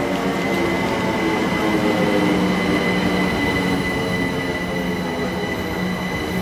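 Greater Anglia Stansted Express electric multiple unit drawing into the platform past the microphone: wheel rumble and motor hum under a steady high-pitched squeal.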